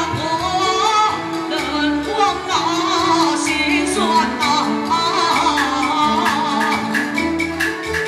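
Taiwanese opera (gezaixi) singing: one performer's voice, with a wavering, ornamented melody, amplified through a handheld microphone over live instrumental accompaniment with a steady beat and regular percussion clicks.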